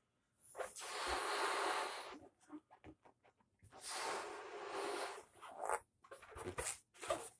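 A pink latex balloon being blown up by mouth: two long breaths puffed into it, each lasting a second and a half or more, with short quiet pauses between them. A few short clicks follow near the end.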